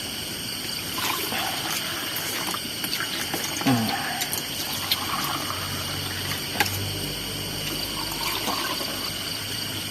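Steady chirring of night insects, with a few light clicks and knocks scattered through.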